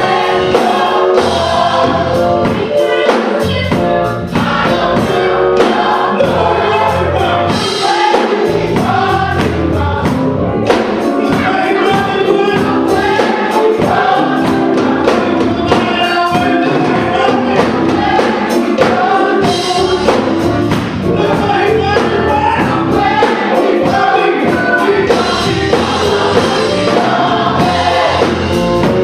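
Gospel choir singing with a live band, drums keeping a steady beat.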